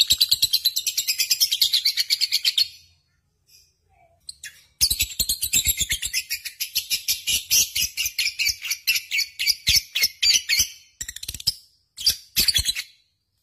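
Lovebird singing in long runs of rapid, shrill chattering notes, about nine a second. Two long bouts are split by a pause of about two seconds, and a few short bursts follow near the end.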